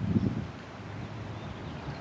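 Wind buffeting the microphone, with a stronger gust in the first half-second, and a few faint high chirps.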